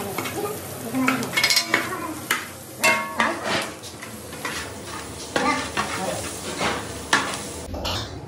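Sliced onions sizzling in hot oil while a metal spatula is stirred through them, scraping and clinking irregularly against the bottom of a large aluminium pot, some strokes ringing. The stirring stops shortly before the end.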